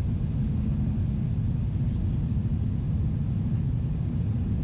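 Steady low cabin rumble inside a Boeing 777-300ER: its GE90 engines and the airflow over the fuselage, heard from a window seat, with no change in level.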